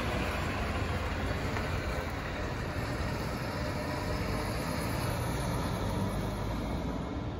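City bus pulling away and driving off, its engine and tyre noise steady, then gradually fading as it moves away.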